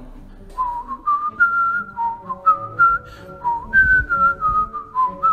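A man whistling a tune: a string of held notes that step up and down in pitch.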